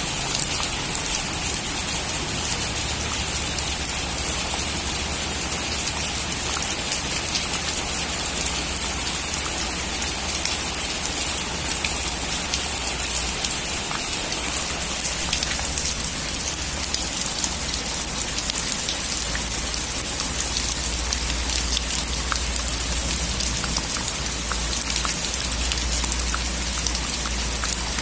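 Steady heavy rain drumming on a metal roof, dense fine drop ticks over a low rumble.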